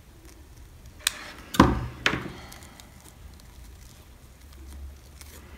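A few light knocks on a tabletop, about a second apart, the second one loudest with a dull thud, as a hot glue gun is set down and the freshly glued headband is handled.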